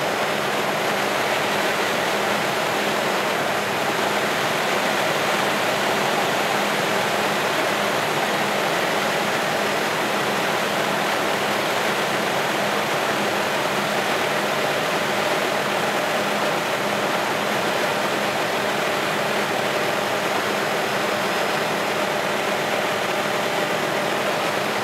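Helicopter engine and rotors running in a steady drone, heard from inside the cabin.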